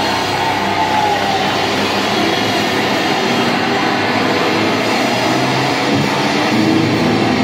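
Death metal band playing live: a loud, dense, unbroken wall of distorted electric guitars, bass and drums.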